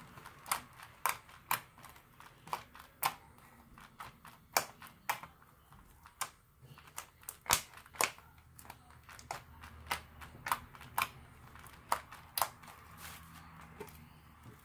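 Green slime being kneaded and pressed by hand, giving off sharp, irregular pops and clicks, roughly one or two a second.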